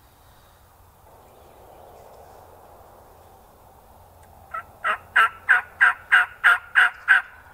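Turkey yelping: a run of about ten loud, evenly spaced yelps, roughly three a second, starting about four and a half seconds in and lasting close to three seconds.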